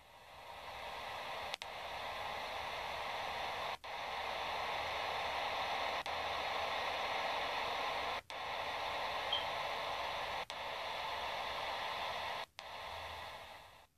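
Steady static-like hiss, presented as the sound of a planet or moon. It fades in over the first second or two, breaks off for a split second about every two seconds, and stops just before the end.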